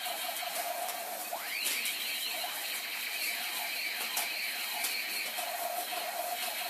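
Toy firework whistling shrilly, with a sharp upward sweep in pitch about a second and a half in, over scattered crackling pops.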